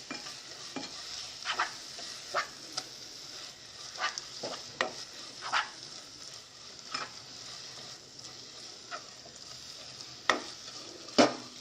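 Onion and spice masala sizzling in coconut oil in a non-stick pan as it is sautéed, with a steady frying hiss and about ten irregular scraping strokes of the stirring utensil against the pan, the loudest near the end.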